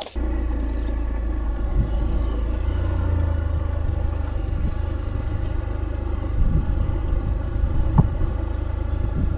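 A motor engine running steadily with a low rumble, cutting in abruptly at the start, with a few brief knocks along the way.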